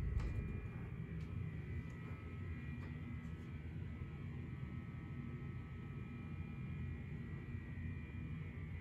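Steady low room hum and rumble with a faint high-pitched whine, and a few faint clicks, the loudest near the start as a closet door is opened.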